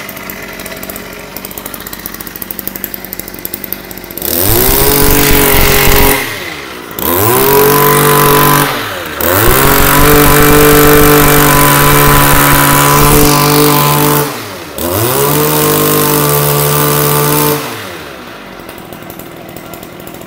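Kioritz Echo RME260BA backpack brushcutter's 26cc two-stroke engine idling. It then revs up sharply four times under the throttle, dropping back to idle between revs and again near the end. It runs smoothly and evenly, the sign of an engine in good running order.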